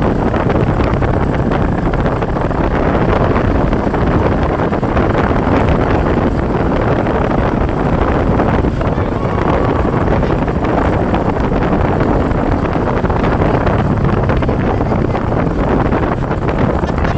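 Loud, steady rumble of a large vehicle's engine and road noise, with wind buffeting the microphone.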